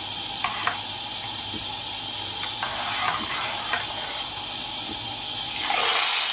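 A metal ladle clinks a few times against the pot while stirring thick yogurt soup over a steady hiss. Near the end, hot olive oil with dried mint is poured onto the soup and it sizzles loudly.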